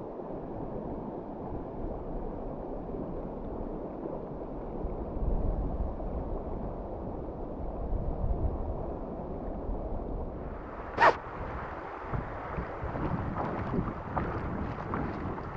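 Steady rush of river water with wind buffeting the microphone. About ten seconds in the water noise turns brighter and hissier, and a second later comes one short sharp snap.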